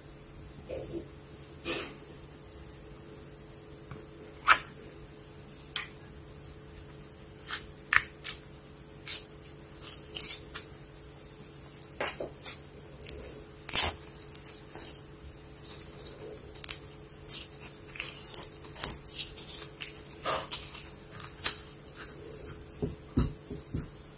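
Slime being squeezed and pressed by hand, making irregular sticky clicks and small pops, at times several a second.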